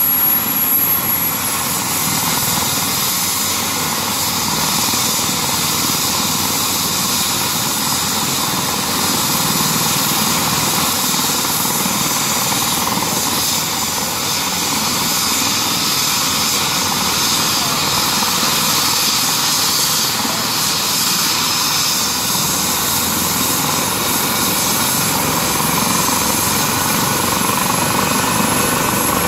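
Airbus H135 (EC135) air ambulance helicopter running on the ground: twin turbines and rotors at a loud, steady roar with a high turbine whine, spooled up before lift-off.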